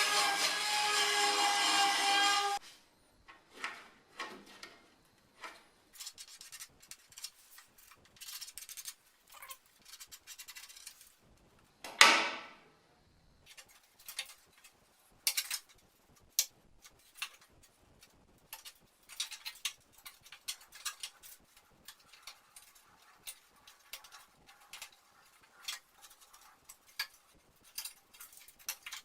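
Hand work on car metal parts during restoration: a small high-pitched power tool runs and cuts off about two and a half seconds in. After it come scattered scraping, rubbing and clicking, with one loud sweeping scrape about twelve seconds in.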